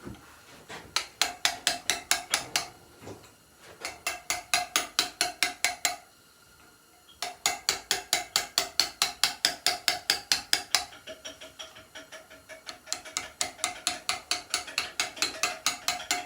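Hammer striking a stone-carving chisel in steady, quick runs, about five or six blows a second, each blow ringing briefly, with two short pauses: hand carving into a stone headstone.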